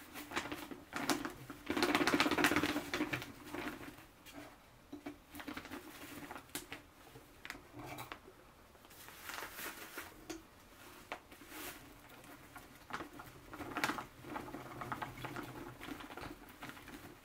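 Sand pattering and trickling out of a plastic zip bag into a glass tank, with the bag crinkling; the pouring is loudest about two seconds in and again near the end.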